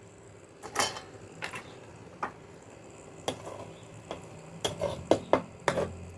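A metal utensil knocking and clinking against a cooking pot while stirring, about a dozen irregular sharp taps, some ringing briefly. Beaten egg is being stirred into simmering coconut-milk sauce.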